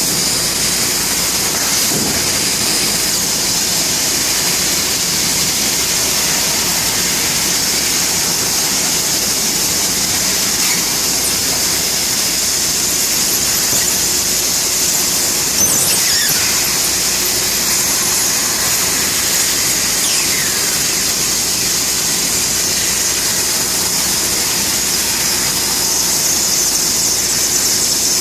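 Bystronic CNC laser cutting machine running with a steady, loud, high hiss. Just past halfway there is a brief squeak that falls in pitch.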